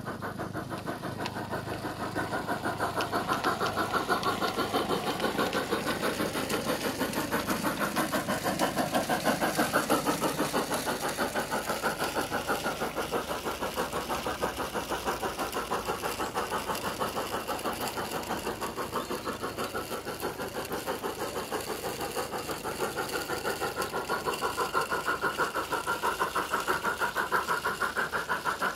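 Simulated steam-locomotive exhaust from a MyLocosound sound card in a Piko BR 24 G-scale model, played through the model's small speaker: a steady run of rapid, even chuffs as the locomotive runs.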